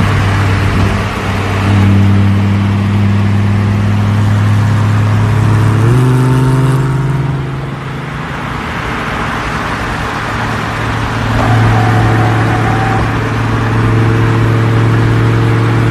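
Lamborghini Huracán Performante's V10 engine running at a steady pitch. The pitch steps up about six seconds in, falls away quieter around eight seconds, and swells back up near twelve seconds.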